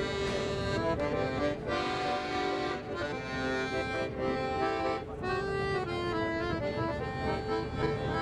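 Accordion playing a tune, a melody of changing notes over held chords.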